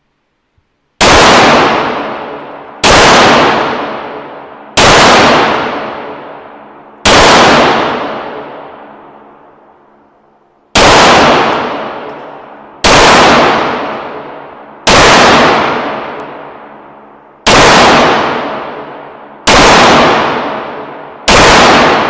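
Ten single shots from a 9mm Beretta 92FS pistol, fired one at a time roughly two seconds apart with a longer pause near the middle. Each shot is very loud and rings out for a couple of seconds as it dies away.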